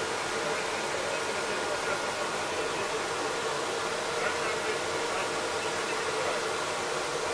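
Mil Mi-8 helicopter's twin turbine engines and rotor running, a steady even rush heard from inside the cockpit.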